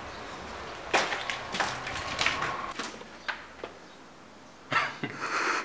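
Footsteps crunching over broken plaster and concrete rubble: a run of sharp crackles starting about a second in, then a few scattered clicks.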